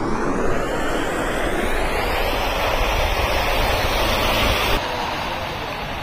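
Cars wading through a flooded road: a loud, steady rush of water thrown up by their tyres, with traffic noise underneath. It drops and changes abruptly about five seconds in.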